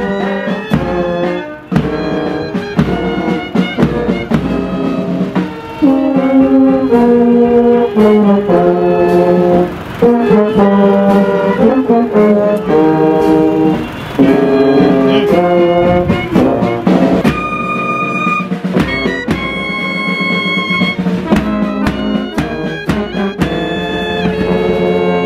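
Brass band with trumpets and drums playing a tune.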